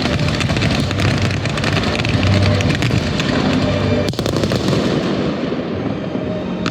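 Fireworks display: a dense barrage of overlapping bangs and crackling shells with no break.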